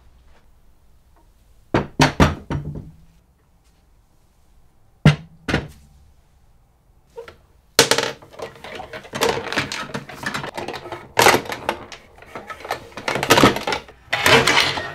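Restored 1920s miniature table football game being handled and played: a few sharp wooden knocks about two and five seconds in, then quick, continuous clatter from about eight seconds on as the metal rods are slid and spun in the wooden frame and the wooden players knock against the ball and pitch.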